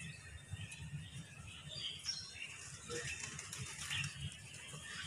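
A flock of domestic pigeons feeding on scattered grain, with short wing flutters and scattered brief high bird chirps.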